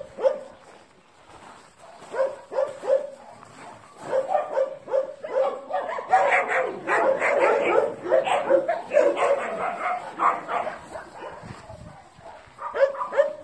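Dogs barking in short repeated barks, sparse at first, then thick and overlapping through the middle, with a short lull before a few more barks near the end.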